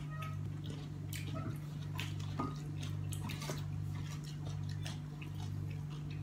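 Scattered light clicks and rustles of hands handling food: picking at roast duck meat, then rummaging through vegetables in a plastic colander. A steady low hum lies underneath.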